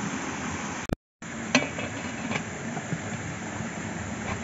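An aluminium momo steamer clinking metal on metal as its parts are set in place: one sharp ringing clink, then a lighter one, over a steady background hiss.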